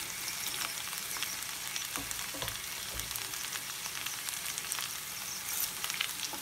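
Sliced vegetables frying in hot oil in a pan: a steady sizzle with small crackles, and light rustling and a couple of soft knocks as handfuls of sliced cabbage go in on top of the sweet potato, broccoli and capsicum.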